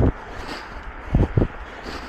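Low thumps on the microphone of a body-worn camera carried on a run, one at the start and two close together just past the middle, over a steady hiss of wind and outdoor noise.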